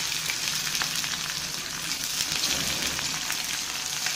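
Sliced onions sizzling in hot mustard oil in a kadai, a steady frying sizzle, while a flat spatula stirs them.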